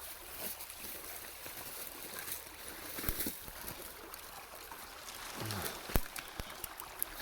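Small creek trickling and running steadily, with a few sharp clicks, the loudest about six seconds in.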